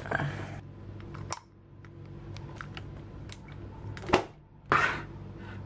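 Metal ice cream scoop scraping through firm frozen ice cream in a metal tin, followed by light clicks and taps, with one sharp tap about four seconds in and a short rustle just after it.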